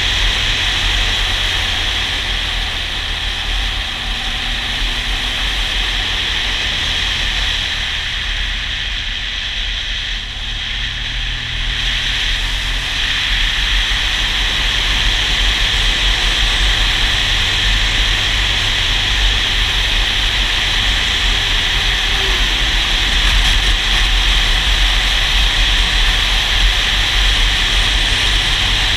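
A motorcycle riding at speed, heard from a camera mounted on the bike: a steady rush of wind noise over a low rumble from the engine and road. It eases briefly about ten seconds in, then builds again.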